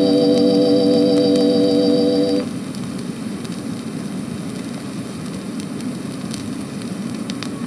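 Organ holding a wavering chord that cuts off about two and a half seconds in, leaving the hiss and faint crackle of an old recording.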